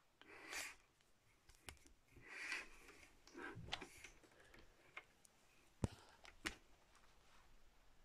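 Faint handling noises: two soft rustles in the first half and scattered light clicks, with two sharper clicks about six seconds in.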